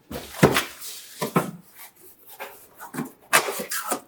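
Rustling and knocking as a bag-in-box cold brew carton is handled, in irregular bursts with the loudest near the start and near the end.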